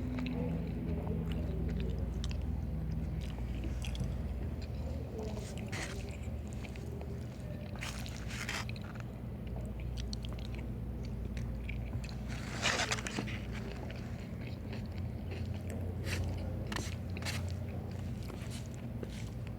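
Close-miked eating: chewing and biting food, with scattered short crunches or clicks and one louder burst about 13 seconds in, over a steady low hum.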